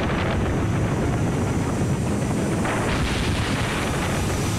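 Dense, steady rumble of explosions and gunfire-like noise, with no single clear blast standing out, swelling slightly about three seconds in.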